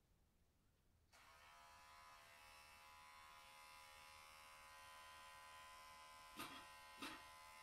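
Electric pet hair clipper switched on about a second in, running with a steady buzz, with two brief clicks near the end.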